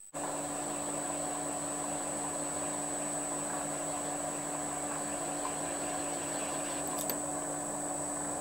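Small metal lathe running steadily, its motor and drive giving a constant hum and whine while a tool cuts the ring held in the chuck. A faint brief click about seven seconds in.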